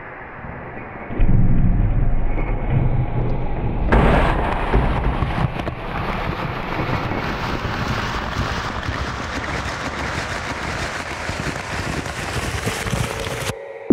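Sound effects from a projection-mapping show's soundtrack: a deep low rumble starting about a second in, joined at about four seconds by a loud, even rushing hiss that cuts off suddenly near the end.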